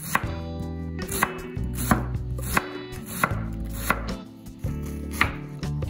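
Kitchen knife slicing a red onion on a wooden cutting board: a run of crisp knife strikes against the board, the louder ones coming about every two thirds of a second.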